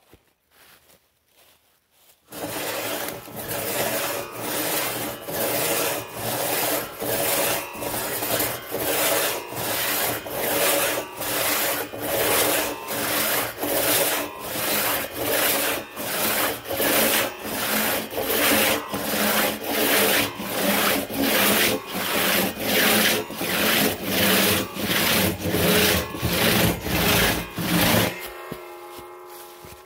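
Two-man crosscut saw cutting through an ironwood log in steady back-and-forth rasping strokes, starting about two seconds in. Near the end the strokes stop abruptly as the cut goes through and the end of the log drops, followed by a faint ringing from the steel blade.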